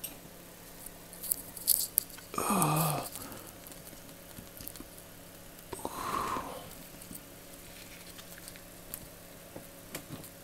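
Snap-ring pliers working a retaining snap ring onto the head of a Craftsman stainless 3/8-inch drive ratchet: a few faint, sharp metal clicks, with a short grunt with falling pitch about two and a half seconds in and a breathy exhale around six seconds.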